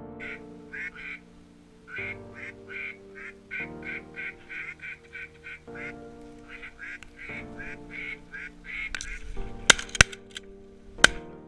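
A rapid, continuous run of duck quacks, several a second, then three shotgun shots near the end: two almost together and a third about a second later, the loudest sounds.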